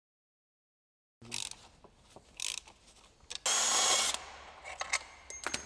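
Hands working parts loose on a motorcycle frame: scattered clicks and knocks, with one loud scraping, rustling noise lasting under a second about halfway through. It starts after about a second of silence.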